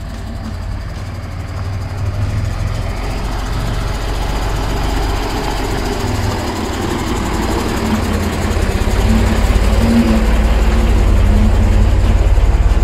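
Magirus Deutz 170D11 truck's air-cooled diesel engine running at low speed as the truck crawls along a gravel track, getting louder as it draws near and passes close by.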